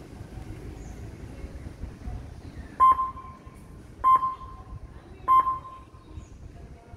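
Three short electronic beeps at one pitch, evenly spaced about a second and a quarter apart, over faint low background noise.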